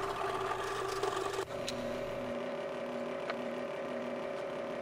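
Scroll saw running with a steady motor hum while it cuts a laminated hardwood block; the hum shifts in pitch about a second and a half in.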